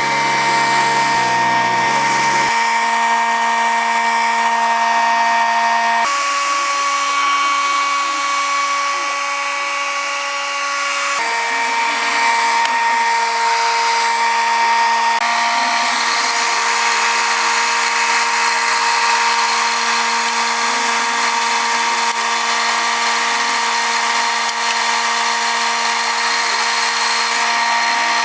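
Background electronic music: sustained synth chords held for several seconds at a time, shifting to new chords about six and eleven seconds in, over a short stepping bass line at the start.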